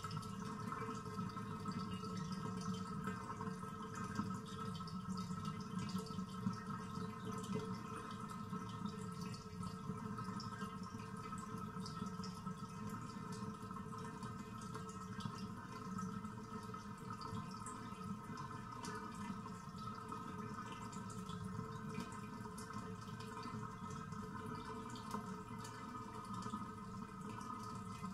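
The last of the water draining from a bathtub: a steady flow down the drain with light drips and trickles over it.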